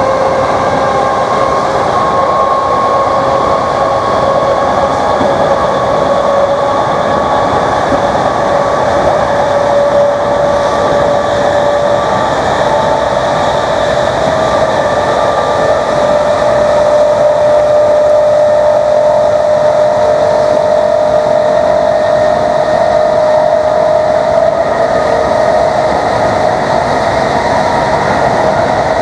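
Class 321 electric multiple unit's traction motors whining under power, the whine climbing slowly in pitch as the train gathers speed, over loud steady running noise from the wheels and track.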